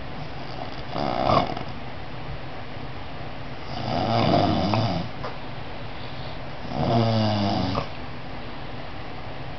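A sleeping child snoring: three snores about three seconds apart, the first short, the other two each lasting about a second.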